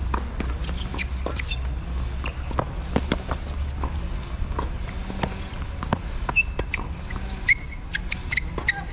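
Tennis balls struck by rackets and bouncing on a hard court: sharp knocks every second or so, the loudest about a second in, at three seconds and at six seconds. A few short sneaker squeaks on the court surface come in the second half, over a steady low rumble.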